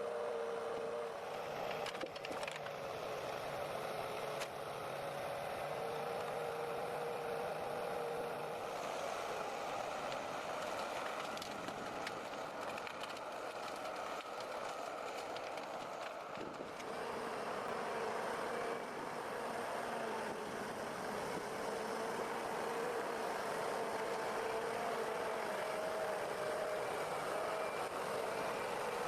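Timber forwarder's diesel engine running steadily while the machine works, its pitch shifting slightly a couple of times, with a few light knocks.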